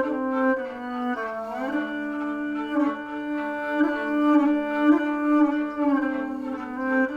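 Kamancha and rebab bowing long, sustained notes in an improvised duet: a low held note under a higher line that slides upward about a second and a half in.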